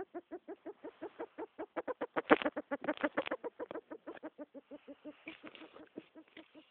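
Pet rat making a rapid run of short, pitched, clucking noises, several a second, which quicken and grow louder about two seconds in, with one sharp click, then ease off toward the end.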